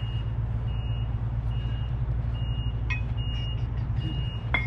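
A vehicle's backup alarm beeping at an even pace, about once every 0.8 s, over a steady low engine rumble. Two sharp clicks come about three seconds in and near the end.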